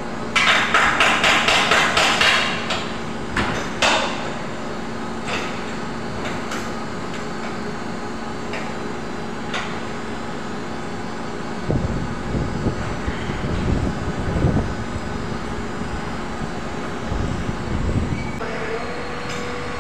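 Hammer blows on sheet-metal ductwork: a quick run of about five knocks a second for two seconds, then scattered single knocks. From about twelve seconds in come irregular low thuds and rumbles, over a steady low hum.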